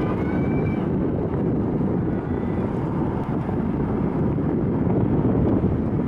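Steady low rushing and buffeting noise of wind on a compact camera's built-in microphone.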